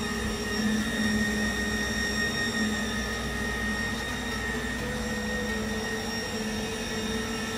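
Steady hum of a CNC ring seam welding machine and its welding power sources running, with several held whining tones and no change in rhythm.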